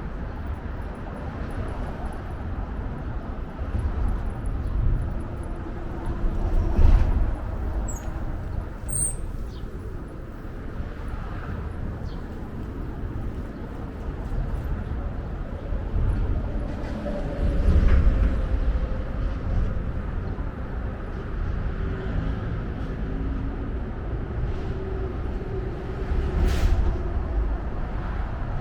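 Outdoor urban ambience recorded while walking: a steady low rumble of distant traffic and wind on the microphone, swelling louder several times, with faint clicks and one brief high chirp about eight seconds in.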